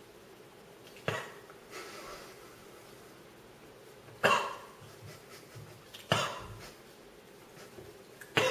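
A young man coughing four times, a couple of seconds apart, sharp and loud each time. He is reacting to the burn of an extremely hot sauce (550,000 Scoville) he has just eaten.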